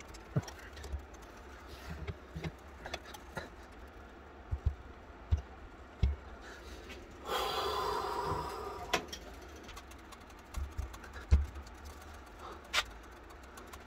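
Scattered metal clicks and knocks of a wrench and bench vise on a rust-seized antique pistol barrel as someone tries to wrench it loose. About seven seconds in there is a strained breath of effort lasting a couple of seconds.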